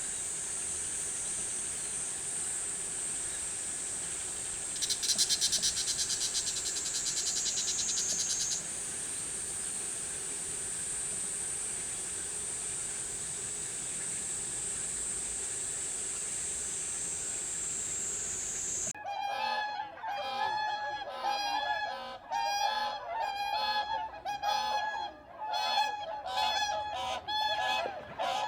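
A steady high-pitched hiss, with a rapid buzzing rattle for a few seconds near the start. About two-thirds of the way through it gives way to bean geese honking, many short calls in quick, uneven succession.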